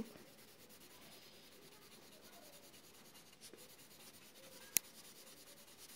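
Faint rubbing of a Prismacolor coloured pencil shading on paper, with one sharp click a little under five seconds in.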